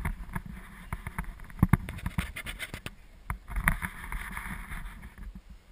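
Irregular knocks and rubbing close to the microphone, with a rustling patch a little past halfway, over the low steady rumble of a moving gondola cabin.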